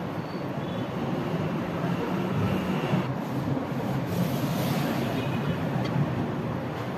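Steady low rumbling background noise, with a light click of a kitchen knife against a plate about six seconds in.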